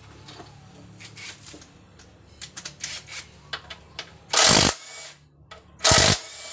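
Tools at work taking the front disc brake off a Suzuki Thunder motorcycle: scattered metal clicks and ticks, then two short loud bursts of noise about a second and a half apart.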